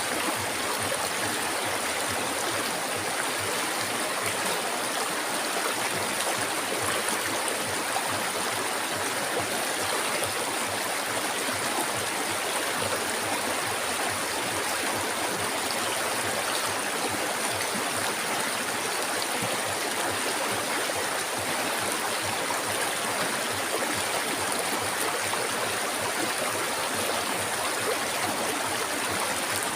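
Flowing river water, a steady, even rush with no breaks.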